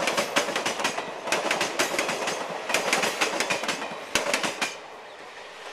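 Wheels of passing Indian Railways passenger coaches clattering over rail joints, in clusters of rapid clicks about every second and a half over a running rumble. The clicking stops near the end, leaving a quieter steady rumble.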